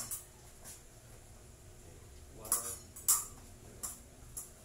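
Epee blades clicking and tapping together in a fencing drill: a few short, sharp metallic clicks, the loudest two about two and a half and three seconds in.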